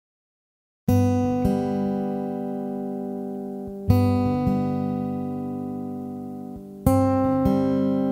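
Background music of an acoustic guitar strumming slow chords, starting about a second in, with a new chord about every three seconds that is left to ring out and fade.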